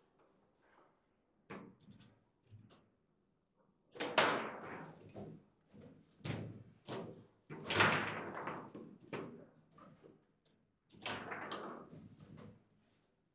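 Foosball table in play: about a dozen sharp, irregular knocks and bangs as the ball is struck by the plastic men and slammed against the table, each with a short ringing decay.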